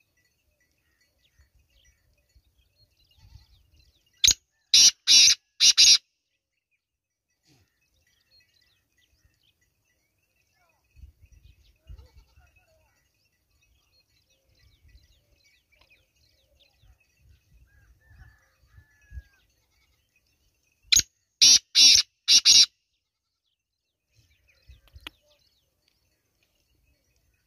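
Male black francolin calling twice, about seventeen seconds apart. Each call is a short note followed by three longer, grating notes.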